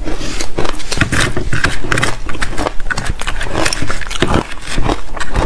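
Close-miked crunching and chewing of soft, powdery frozen ice, a dense run of sharp crackles, with a metal spoon scraping into the block of ice near the end.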